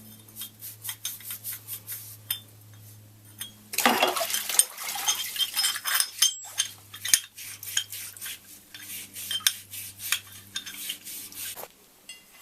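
Stainless steel fittings being polished with a Scotch-Brite pad: repeated scrapes and metallic clinks, loudest in a dense burst of rubbing a few seconds in. A steady low hum runs underneath and stops shortly before the end.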